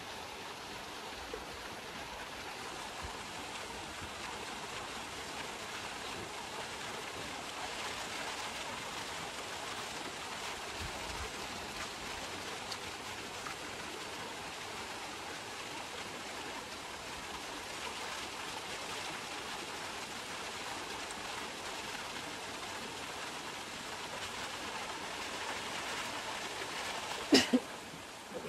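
Mountain stream running steadily over rocks. Near the end there are two brief, loud sounds close together.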